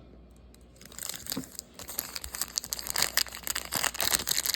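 Plastic cellophane wrapper of a 1981 Topps football rack pack crinkling as it is worked open, a dense run of crackles starting about a second in.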